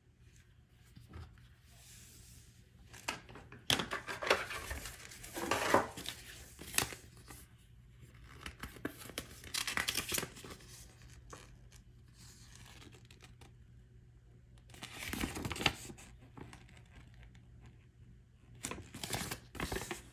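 Paper and packaging rustling and crinkling in irregular bursts as a folded paper user manual is handled and unfolded, the loudest handling about four to seven seconds in.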